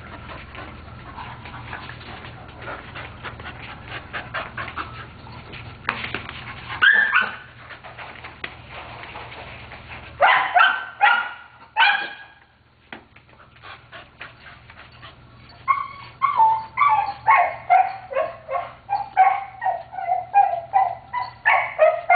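A dog whining and yelping in short, high cries with falling pitch: a few about a third of the way in, a burst near halfway, then a steady string of them about two a second through the last several seconds.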